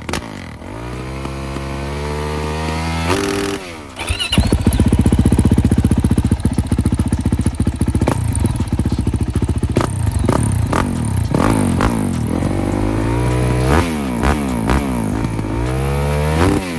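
Yamaha YZ450F single-cylinder four-stroke engine running through its exhaust on a stationary rev test. It idles for a few seconds and is blipped once, then held at a loud steady higher speed for several seconds. Near the end it is revved up and down in a series of throttle blips.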